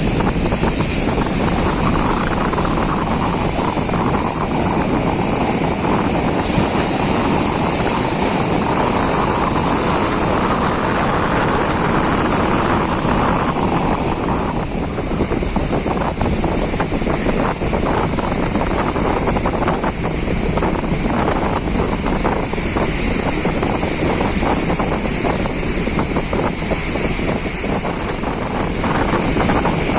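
Strong wind buffeting the microphone over heavy surf, a loud, steady rush of noise.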